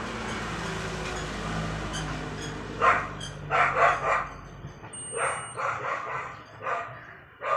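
Continuity tester beeping with a steady high tone for about half a second, about five seconds in, across the fridge thermostat's two wires: the thermostat is conducting and is sound. Several short, loud barks, the loudest sound, come in bursts through the second half.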